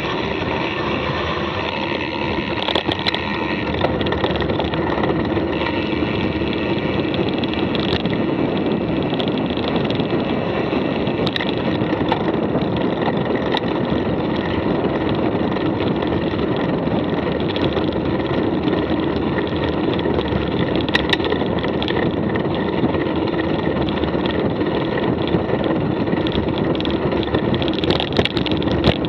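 Mountain bike being ridden: a steady rumble of tyres and wind noise, with a few sharp clicks and rattles from the bike.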